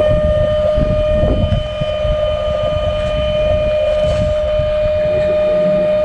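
Car-carrier semi truck running with a steady high whine over a low rumble, typical of the hydraulic pump that works the trailer's rear liftgate.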